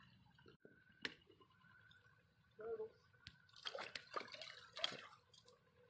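A small fish thrashing at the water's surface beside a fishing float, with several short bursts of splashing. A sharp click comes about a second in.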